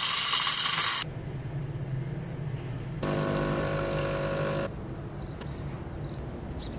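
Espresso machine running as espresso pours, its pump giving a steady buzz for about a second and a half near the middle. A loud hiss fills the first second.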